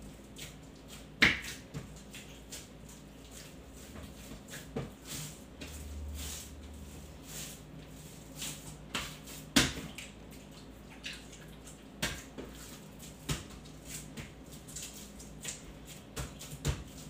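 Hands kneading roti dough on a kitchen countertop: irregular soft knocks and slaps as the dough is pressed and turned. The two sharpest knocks come about a second in and about halfway through.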